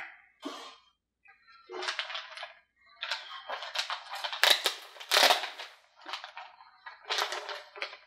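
Plastic packaging crinkling and rustling as the wrapped case parts are handled, in several crackly bursts, loudest about halfway through.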